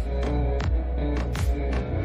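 Background electronic music with a heavy bass and a steady beat.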